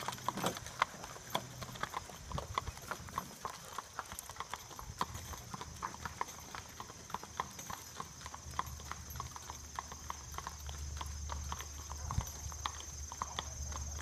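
Shod hooves of a two-horse team clip-clopping on an asphalt road as they pull a wagon, an even run of several hoofbeats a second.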